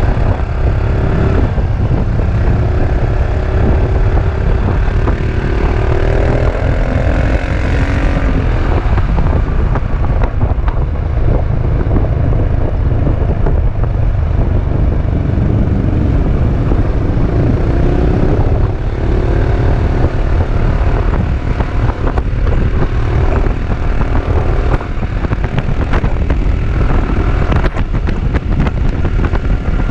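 Wind rumbling hard on a GoPro Session 5's microphone while riding a Peugeot Métropolis three-wheeled scooter at road speed. Under the wind, its 400 cc single-cylinder engine and the motorcycles riding with it can be heard, their engine note rising and falling at times.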